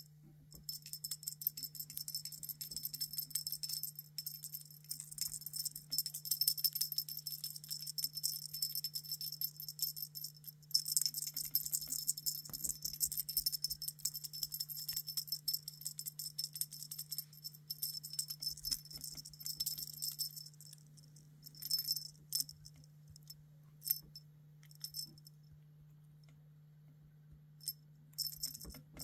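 A small jingling rattle shaken in quick bursts, almost without pause for the first twenty seconds, then in a few short separate shakes with a quiet stretch near the end, over a steady low hum.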